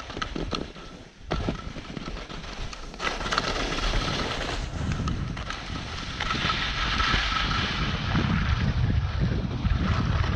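Wind buffeting the microphone of a camera worn by a skier in motion, mixed with the hiss and scrape of skis running over snow; it grows louder after the first second or so as speed builds.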